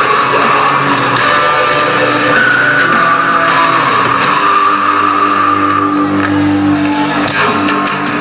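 Loud music with guitar, in a rock style.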